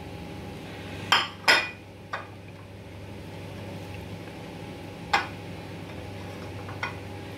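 Kitchen dishes clinking as chopped onion, chilli and ginger are scraped off a ceramic plate into a steel bowl of idli batter. There are two sharp clinks about a second in, a lighter one just after, another near five seconds and a faint one near the end, over a steady low hum.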